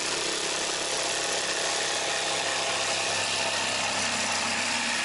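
Ryobi CJ-250 corded electric jigsaw running steadily, its blade sawing through 5.5 mm plywood as the automatic feed rig pushes the cut along.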